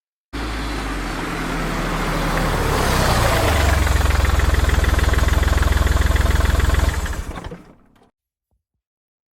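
An engine running with a deep, rapidly pulsing rumble that grows louder, then stops about seven seconds in and dies away.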